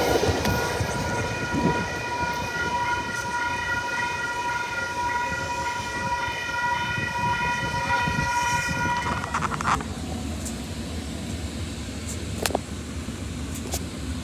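Metrolink commuter train running past with a steady, high-pitched ringing tone of several notes held over its running noise. About ten seconds in this gives way to the quieter low rumble of riding inside a moving train.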